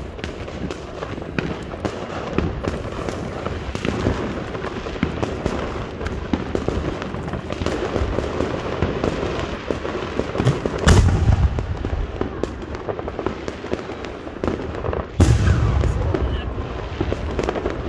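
A 6-inch aerial firework shell: a deep boom about eleven seconds in, taken for the mortar's lift charge, then a second loud boom about four seconds later as the shell bursts overhead. Other fireworks crackle and pop all through.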